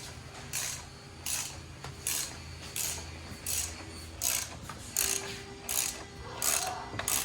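A ratchet tie-down strap being cranked tight, its pawl clicking in short bursts about once every 0.7 seconds, stroke after stroke.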